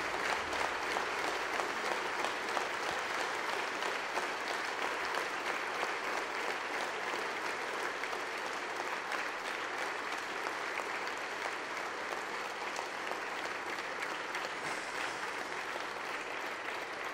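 A large audience applauding, many hands clapping in a steady, sustained ovation that eases slightly toward the end.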